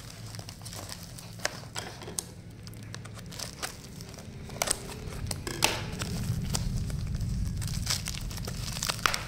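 Bubble wrap and plastic tape being pulled and cut away from a wrapped bottle: crinkling with scattered sharp crackles.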